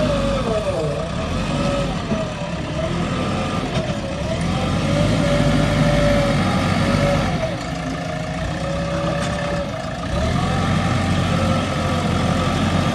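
JCB 3DX Xpert backhoe loader's diesel engine running under working load, its pitch dipping and picking back up about four times.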